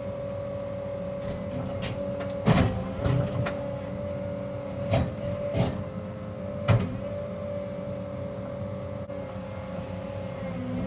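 Cat 306 mini excavator running steadily with a constant whine over its engine, while about five sharp cracks and knocks ring out as brush and vines are broken, the loudest about two and a half seconds in.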